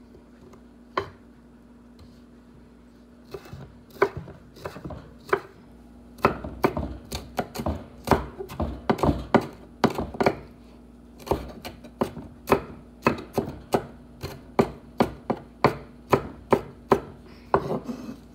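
Large kitchen knife chopping a red bell pepper on a wooden butcher-block board: sharp knocks of the blade on the wood, a few scattered at first, then a steady run of about two a second from about six seconds in.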